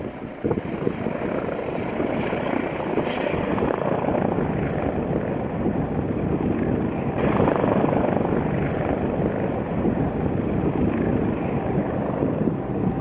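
Boeing 787-8 jet engines at takeoff power, a steady broad rumble that swells slightly about seven seconds in, mixed with wind buffeting the microphone.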